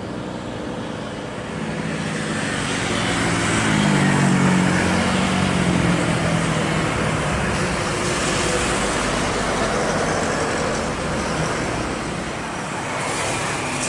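Jet engines of a Boeing 777-300ER, GE90 turbofans, as the airliner rolls down the runway after landing. The noise swells about two seconds in, is loudest with a low hum around four to six seconds in, then holds steady.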